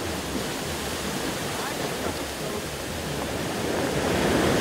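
Ocean surf washing onto a beach, a steady rush of breaking waves that swells a little near the end.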